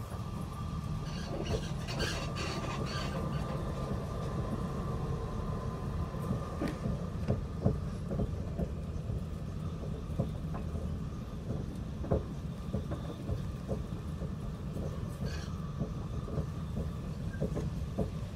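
Steady low rumble of a moving passenger vehicle heard from inside its cabin, with a faint steady hum and scattered short clicks and rattles.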